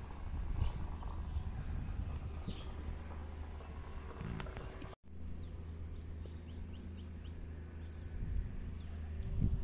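Small birds calling with many short, high, downward-sweeping chirps, over a steady low rumble of outdoor background noise. The sound cuts out for an instant about five seconds in.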